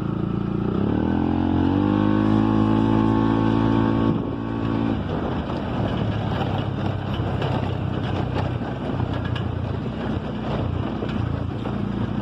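A vehicle engine revving up and accelerating, its pitch rising about a second in. It holds at high revs for a few seconds, then eases off around four to five seconds in and runs on steadily with a rougher, noisier sound.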